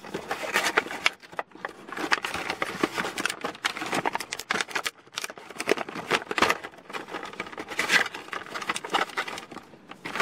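Cardboard box and plastic tray being opened and handled as a corded hair trimmer is unpacked: irregular rustling, scraping and clicking.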